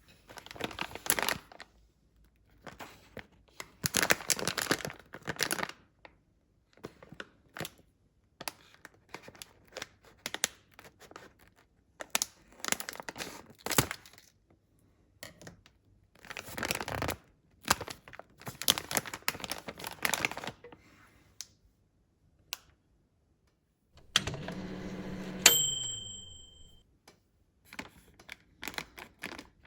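Wrapping being crinkled and torn in irregular bursts for about twenty seconds. Then a microwave oven hums, winds down with a click, and gives one long high beep, the signal that heating has finished.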